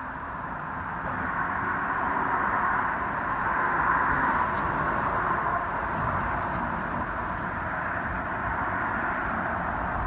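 Road traffic passing on a nearby bridge: a steady hiss of tyres that swells from about one and a half to five seconds in, then holds.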